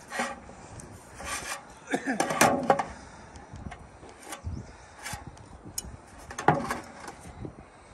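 Several short scraping and rubbing strokes, with light knocks, as a pencil and a metal speed square are worked along a length of painted metal roof trim; the loudest strokes come about two to three seconds in.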